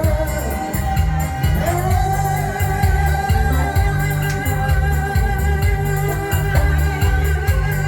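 Forró music: a singer over a band, with held melody notes and a steady bass beat.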